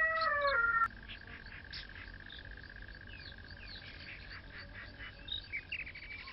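A rooster's crow ends in a long held note that drops in pitch and stops about a second in. Quieter birdsong follows: scattered chirps over a steady high-pitched tone.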